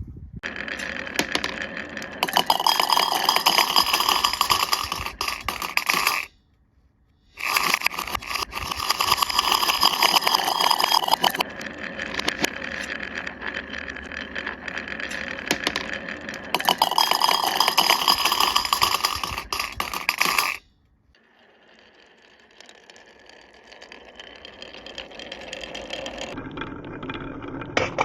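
Glass marbles rolling and rattling along a HABA wooden marble run, a continuous clattering roll that cuts off abruptly about six seconds in, starts again a second later, stops again about twenty seconds in, then builds back up more faintly toward the end.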